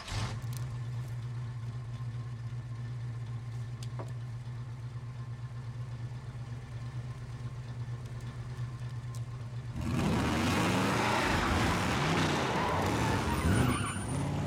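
A pickup truck's engine, started by hot-wiring under the dashboard, catches and idles with a steady low hum. About ten seconds in it revs hard and the truck pulls away fast, with a loud rushing noise of spinning tyres over the rising and falling engine note.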